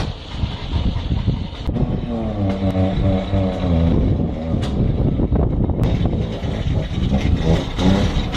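Barkas B1000 van's three-cylinder two-stroke engine running while driving, its pitch climbing as it pulls between about 2 and 4 seconds and again at the very end, with a few sharp clicks in between.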